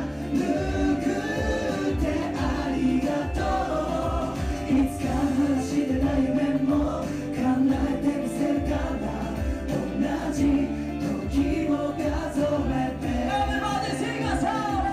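Live J-pop ballad: backing music with voices singing, running steadily.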